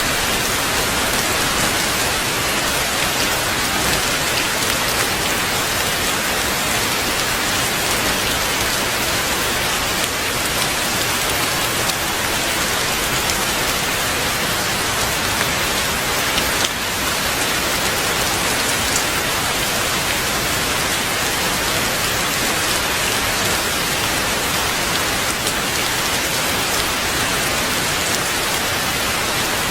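Heavy rain falling steadily, a dense even hiss of drops with one sharper tap a little past halfway.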